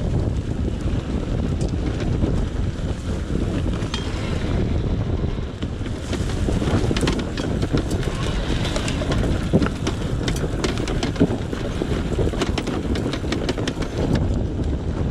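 Husqvarna TE300 two-stroke enduro bike running off-road, heard mostly as heavy wind buffeting on the microphone. Sharp knocks and clatter come in from about six seconds in.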